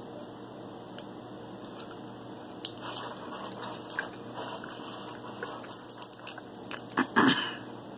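King crab leg shell being cracked and picked apart by hand, with small scattered cracks and wet squishing of the meat. Near the end, a loud cough.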